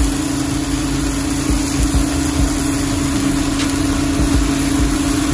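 Sliced onions with brown sugar sizzling in a frying pan as they caramelize, over a steady low hum that holds one pitch.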